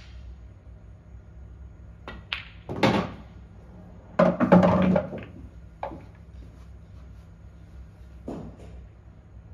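Pool balls on an English pool table: a sharp cue strike about two seconds in and a heavy knock just before three seconds, then a loud clattering rumble from about four to five seconds as a potted ball drops and runs through the table's internal ball-return channel. A few lighter ball clicks follow later.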